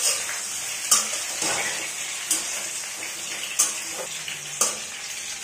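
Potatoes and pointed gourd being dry-roasted in a steel pot, sizzling steadily, while a metal spoon stirs and knocks against the pot five times.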